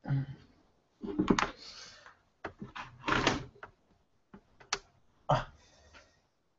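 Irregular knocks, clatter and rustling as a laptop power adapter and its cable are picked up and handled, with the loudest knocks about a second, three seconds and five seconds in.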